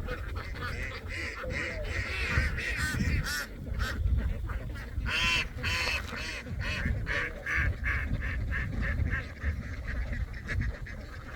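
A large flock of domestic ducks quacking, with many short calls overlapping constantly, over a steady low rumble.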